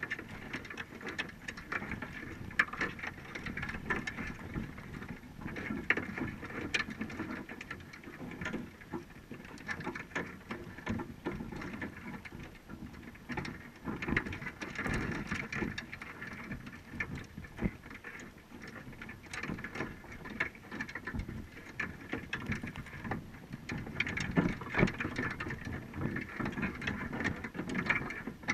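Underwater sound picked up through a GoPro's waterproof housing on a crab trap on the seabed: a steady muffled wash of water noise dotted with many irregular clicks and crackles.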